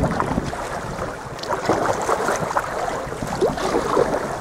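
Water splashing and lapping against a sea kayak as it is paddled, with wind noise on the microphone.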